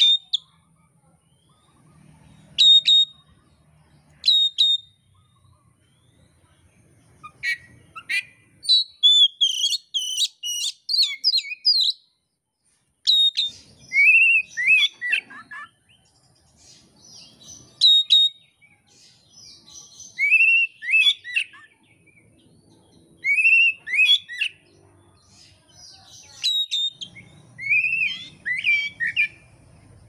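Male oriental magpie-robin singing: sharp, loud whistled notes and phrases of rising and falling whistles, with a fast run of varied notes midway, broken by short pauses.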